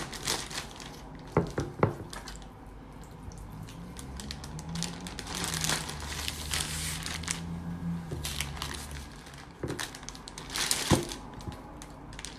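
Plastic zip-top storage bag crinkling and rustling as it is handled and its zipper worked, with scattered small clicks; the rustling is loudest about five to seven seconds in and again near eleven seconds.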